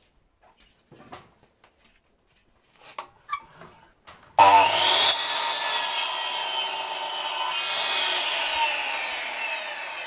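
Bosch sliding mitre saw starting abruptly about four seconds in and running at full speed, then cutting through a wooden board, its whine falling in pitch during the cut. Before it starts, a few light knocks of the board being handled.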